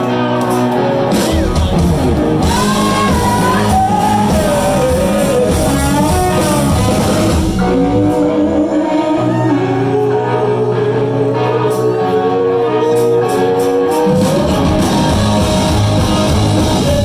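Rock band playing live in a large room: a man's sung lead vocal with long, wavering held notes over electric guitar and a steady bass line.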